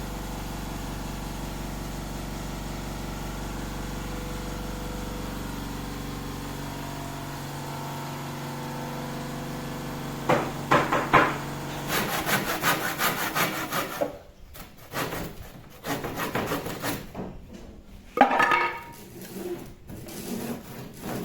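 A machine's steady hum winds down and fades over the first several seconds. From about ten seconds in come irregular scraping and rubbing strokes on wood, broken by sharp knocks.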